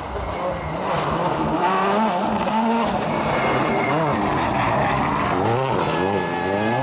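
Rally car engine at full attack, its pitch rising and falling as the driver changes gear and lifts and blips the throttle through a bend. The swings come quickest about four seconds in and again near the end.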